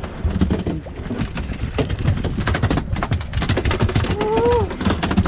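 Wind buffeting the microphone and choppy water slapping against a small boat, a steady low rumble broken by many sudden knocks. About four seconds in, a few short tones rise and fall in pitch.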